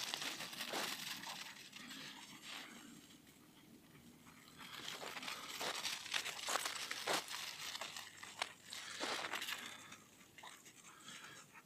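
Crunching steps in snow, an irregular series of crisp crunches with a quieter stretch about three to four seconds in.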